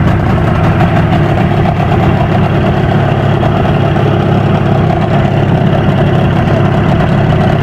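Small fishing boat's outboard motor running steadily while the boat is under way.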